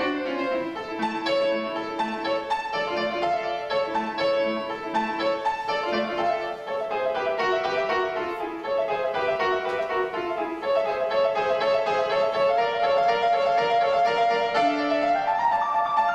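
August Förster grand piano played solo in fast, dense passage-work of running notes, with a run falling in pitch about halfway through.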